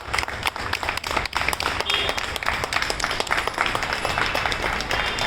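A crowd of people clapping their hands in applause.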